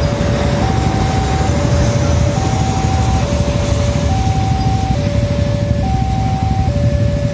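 Railway level-crossing warning alarm sounding a steady two-tone signal, alternating a lower and a higher note about every second while the crossing is closed for an approaching train. Underneath is a constant low rumble of idling motorbikes and traffic.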